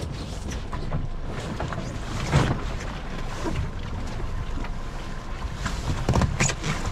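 Wind buffeting the microphone over water sloshing against a small boat's hull, with two short, louder thumps about two and a half and six seconds in.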